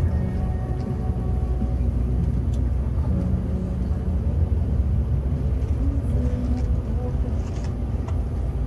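Scania K360 coach's 13-litre DC13 inline-six turbo diesel running steadily under way, a deep, even drone heard from inside the driver's cab.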